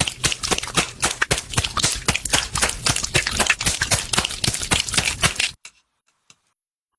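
Comic fart sound effect: a long, rapid string of crackling, sputtering pops that cuts off suddenly about five and a half seconds in.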